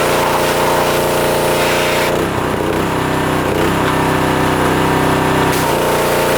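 Pressure washer running, its motor and pump steady under the hiss of the spray. About two seconds in the spray stops for roughly three and a half seconds, the machine's note changing while the trigger is off, then the spray starts again.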